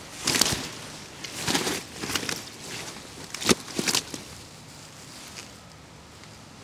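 A run of short rustling, scuffing handling noises, five or six in the first four seconds, then only a steady low background.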